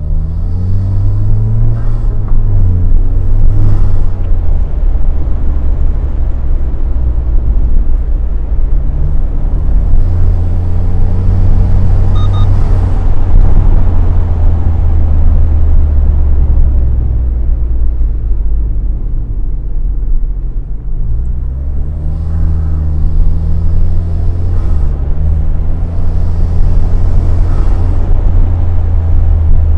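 Turbocharged four-cylinder engine of a Lexus IS with its turbo muffler removed, accelerating through the gears with a heavy low drone. The engine note climbs several times and drops at each upshift.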